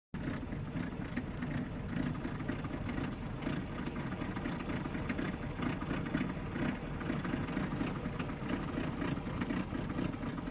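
Military truck engine idling close to the microphone: a steady, rough low rumble.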